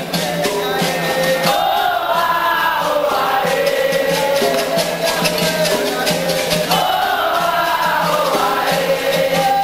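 Capoeira Angola music: berimbaus with their shaken caxixi rattles and an atabaque drum keep a steady rhythm, while a group of voices sings two phrases over it.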